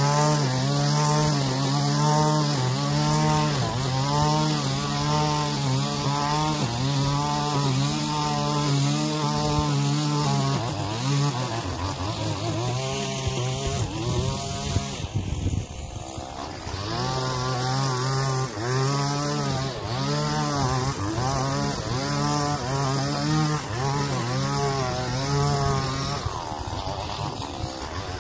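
Stihl string trimmer's engine running at high speed while cutting grass, its pitch rising and dipping over and over as the head is swung through the grass. About halfway through the engine eases off to a lower speed for a few seconds, then picks up again.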